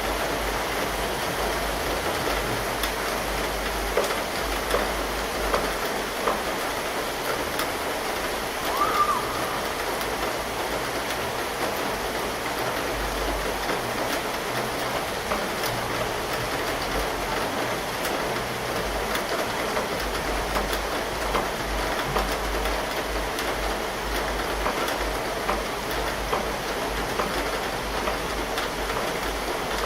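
Steady rain from a summer thunderstorm, with many small drop ticks close by. About nine seconds in there is a brief high sound, the loudest moment.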